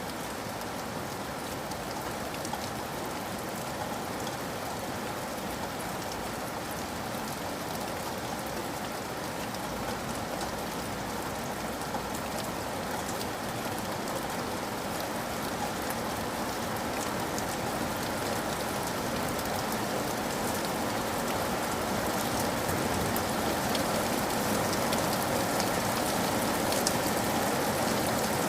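Steady rainfall, a dense even hiss of drops pattering on a surface with scattered sharper drop ticks, growing slowly louder.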